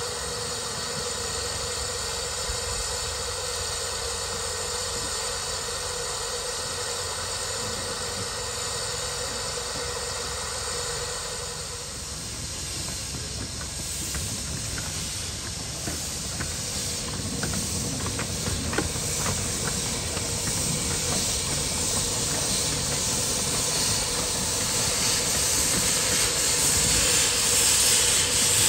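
Miniature steam locomotive hissing steam, steady for the first part. Partway through, scattered clicks join in and the hiss grows louder toward the end.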